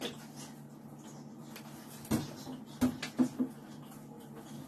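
A few short knocks and bumps of plastic toiletry bottles being handled and set down by a bathtub, over a steady low hum.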